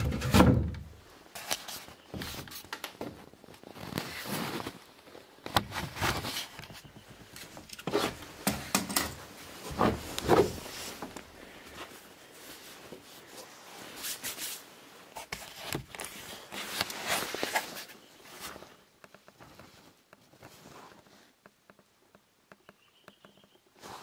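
Irregular knocks, scrapes and rustling of a person clambering among old wooden beams and boards, jacket brushing close to the camera, with a heavy thump at the start. It goes quieter about three-quarters through, leaving only faint ticks.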